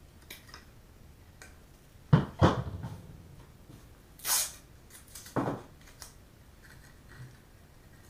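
Hand cutters and other tools being handled on a wooden workbench: a faint snip near the start, two sharp knocks about two seconds in as the cutters are set down, a short rasp about four seconds in, and another knock about five and a half seconds in.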